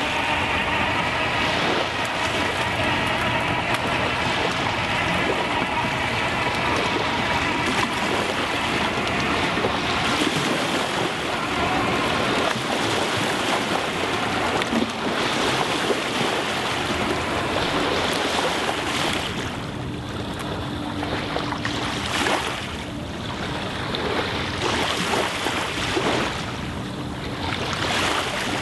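Tracked ROV driving into shallow sea water: a steady motor whine from its drive and tracks over the wash of small waves and wind. The whine is clearest in the first half, and a lower steady hum comes in later.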